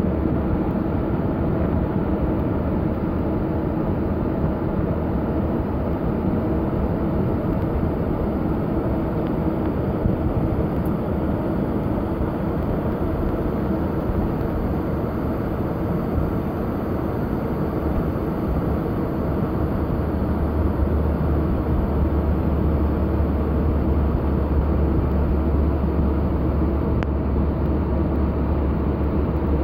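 Steady rushing cockpit noise of a Boeing 737 cruising at high altitude, with a deeper hum that grows louder about twenty seconds in.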